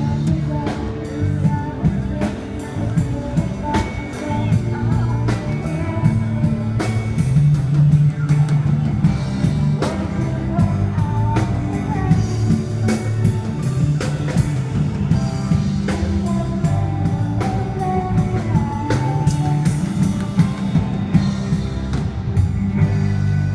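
Live band playing an instrumental passage with drum kit, bass line and guitar or keys melody, at a steady beat.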